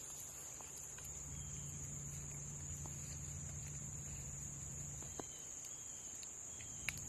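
Steady, high-pitched insect chorus, with a few faint clicks near the end.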